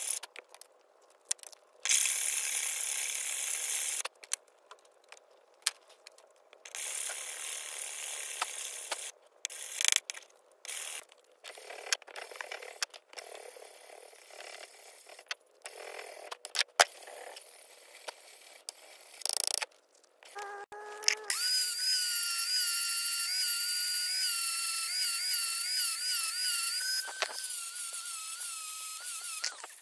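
Abrasive block scraped by hand over the steel of a small axe head in short rasping strokes with pauses between them. About 21 seconds in, an angle grinder starts and runs with a steady whine that wavers slightly as it works.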